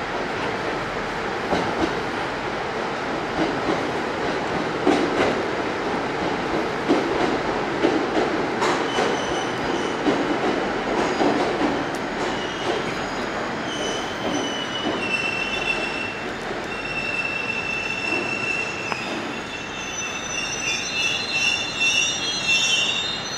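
JR East 701-series electric train running slowly through the station, with rumble and a few wheel clicks over rail joints. From about halfway on the wheels squeal at several high pitches.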